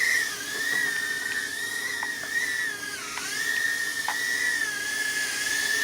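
Red Pawz R11 toy quadcopter's small motors and propellers whining at a steady high pitch in flight, the pitch wavering with throttle and dipping briefly about three seconds in.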